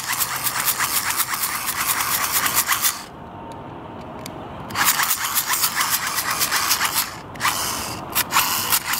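Hand-crank dynamo flashlight being wound to charge it: a rapid whirring rasp of its crank gears. It goes in bouts: about three seconds of cranking, a short pause, then cranking again from about five seconds in, with brief breaks.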